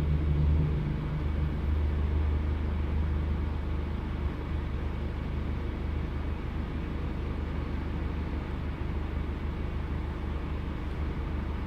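Engine running with a misfire, a steady low hum that is a little louder for the first second or so.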